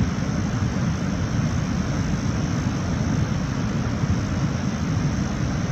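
Waterfall roar: a steady, even rushing, heaviest in the low end.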